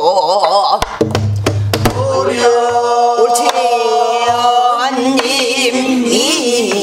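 A woman singing pansori in a long, wavering held line, accompanied by a buk barrel drum. The drum strikes once about a second in with a deep boom, and a few lighter strokes follow.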